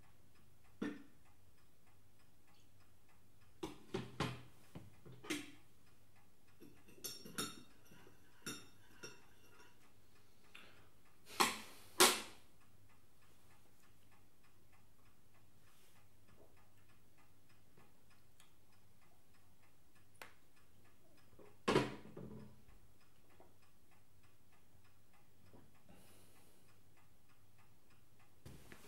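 Quiet breakfast table with scattered clinks and knocks of crockery being handled: cups and mugs lifted and set down. There is a louder pair of knocks a little before halfway and another about three-quarters through, over a faint even ticking.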